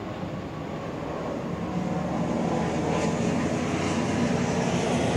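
Low, steady rumble of a passing engine, growing louder from about a second and a half in.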